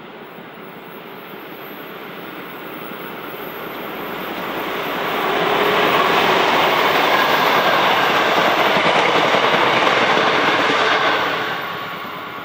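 V/Line N class diesel locomotive, with an EMD 645 engine, leading a train of passenger carriages past. The sound builds as the locomotive approaches and is loudest for several seconds while the carriages roll by, their wheels running on the rails. It falls away near the end as the train recedes.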